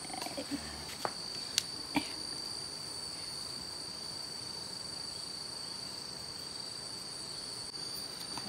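Insects chirring steadily in a high, even pitch, with a few faint clicks between one and two seconds in.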